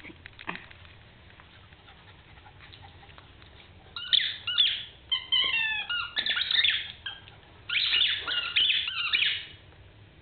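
A Cairn terrier biting a squeaky dog toy, setting off rapid bursts of high-pitched squeaks from about four seconds in, some squeaks sliding down in pitch. The squeaking stops shortly before the end.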